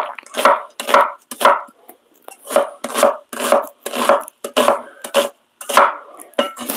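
Knife chopping vegetables on a wooden cutting board, steady strokes at about two a second, with a brief pause about two seconds in.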